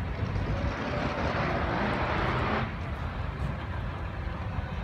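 A loud rushing hiss builds for about two and a half seconds and then cuts off suddenly, over a steady low rumble.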